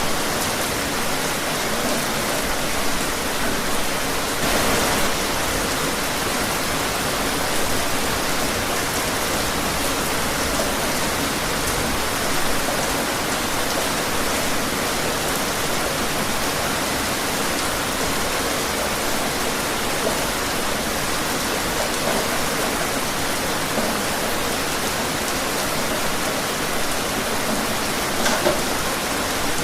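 Steady rain falling outdoors, an even hiss of many drops with a few brief louder gusts of drops.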